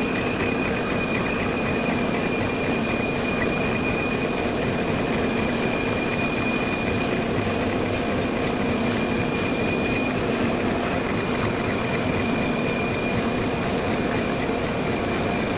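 CNC lathe taking a facing cut across the front face of a workpiece: steady machining noise with a high, even whine from the cut.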